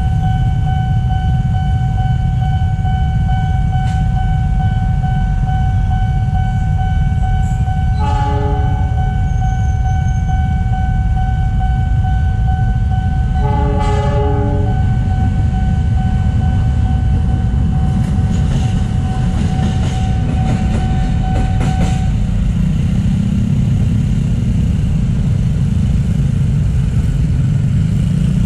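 Railway level-crossing warning alarm sounding a steady tone over a constant low rumble, while a KRL electric commuter train sounds its horn twice, about 8 and 14 seconds in. The alarm stops about 22 seconds in, the sign that the crossing is clearing.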